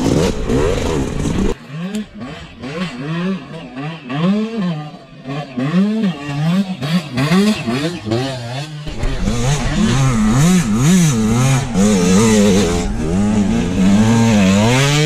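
Dirt bike engine revving up and down over and over, its pitch rising and falling sharply with each burst of throttle.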